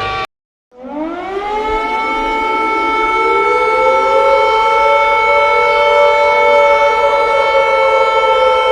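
A civil-defence-style emergency alert siren winds up in pitch over about two seconds, then holds a steady wail of several tones sounding together. Just after the start, the previous alert tone cuts off abruptly and there is half a second of silence before the siren begins.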